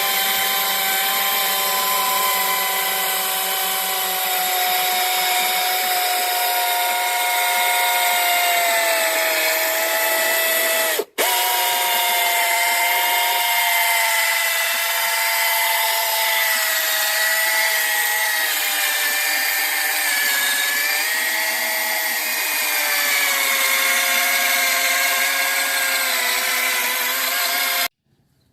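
Handheld electric power tool running with a steady whine while buffing a plastic headlight lens, its pitch sagging and recovering slightly as it is pressed against the work. It cuts out briefly about eleven seconds in and again near the end.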